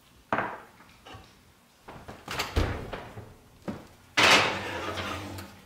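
Kitchen oven door and metal oven rack clattering as a glass baking dish is slid into the oven, the loudest clatter about four seconds in and ringing on for about a second. A few lighter knocks come before it.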